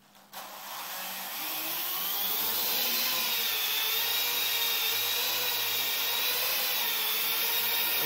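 Parrot AR.Drone quadcopter's four electric rotors starting up about a third of a second in, the whine rising as the motors spin up to lift off, then a steady whirring buzz as it hovers.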